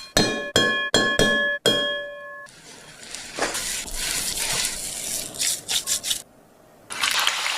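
About five sharp, ringing clinks of a kitchen utensil striking a metal or glass vessel in the first two and a half seconds, each ringing at the same pitches. A steady hiss with faint clatter follows, broken by a brief quiet gap near the end.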